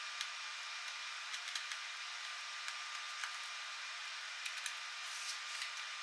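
Small, irregular clicks of a precision screwdriver turning out tiny screws from a laptop's metal bottom panel, over a steady hiss.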